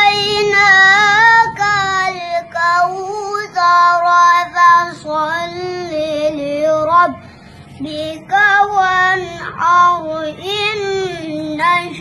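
A young boy reciting the Qur'an in melodic tilawah style: one child's voice holding long, ornamented notes that waver in pitch, with short pauses for breath.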